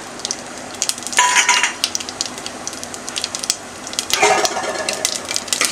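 Bay leaves and whole spices crackling and popping in hot mustard oil in a metal pot, a scatter of sharp pops over a soft sizzle with two brief louder stretches, about a second in and just past four seconds. The crackling shows the oil is hot enough for tempering.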